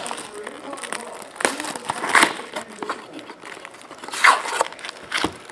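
Plastic shrink-wrap crinkling and tearing as it is peeled off a trading-card hobby box, in irregular rustling bursts.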